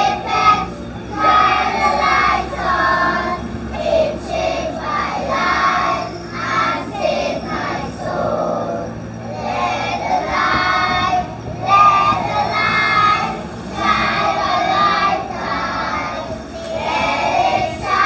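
A group of young children singing a song together in unison, in sung phrases with short breaths between them.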